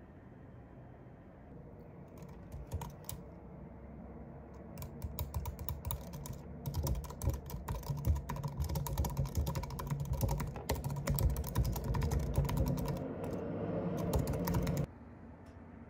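Typing on a laptop keyboard: scattered key clicks at first, building into a quick, dense run of keystrokes that stops abruptly near the end.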